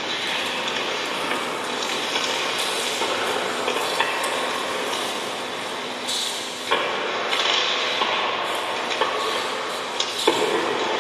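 Live minimalist electronic music played from a laptop and mixer through a PA speaker: a dense, noisy texture of layered short loops. The layers shift abruptly about three, six and a half, and ten seconds in.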